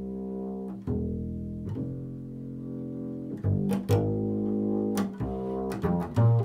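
Double bass played pizzicato: one long ringing plucked note about a second in, then a quicker run of plucked notes in the second half.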